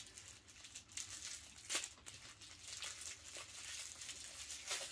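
Packing wrap crinkling as a small packed part is unwrapped by hand, in irregular crackles with a louder one a little under two seconds in and another near the end.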